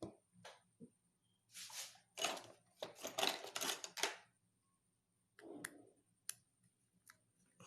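Small clicks and a few seconds of scraping as a screw is driven to fix the new LED board into the bulb housing, with a last short scrape a little later.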